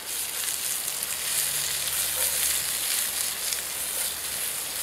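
Chicken of the woods mushroom and red onion sizzling steadily in a frying pan over high heat.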